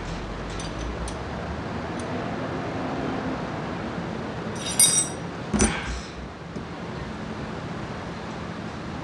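Metal tools or parts clinking during suspension work: one sharp, ringing metal clink about five seconds in, then a dull knock with a shorter clink just after, over a steady hiss.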